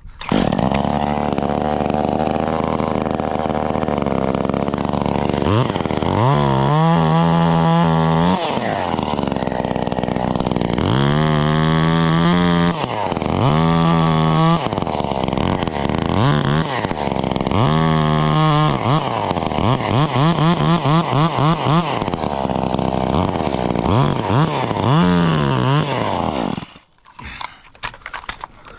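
Echo CS-2511T two-stroke top-handle chainsaw running steadily, then revved up to full speed and let back down again and again in short bursts of a second or two. It cuts off abruptly near the end.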